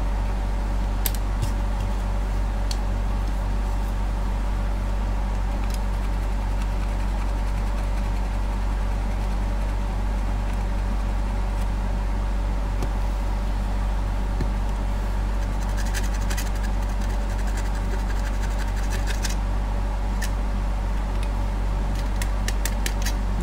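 A steady low hum with a string of evenly spaced overtones. It is broken by a few light clicks and, in the second half, by scratchy scraping as a knife blade scrapes the metal contacts of the blower resistor board.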